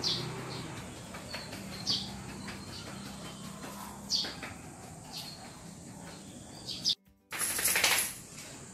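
Small birds chirping, short high chirps every second or two over a faint low hum. Near the end the sound drops out for a moment, then a loud rushing noise lasts about a second.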